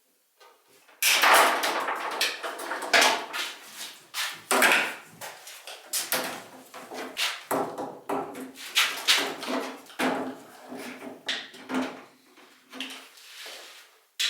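Irregular knocking, banging and scraping clatter, as of things being handled and set down, starting about a second in and continuing in quick uneven strokes.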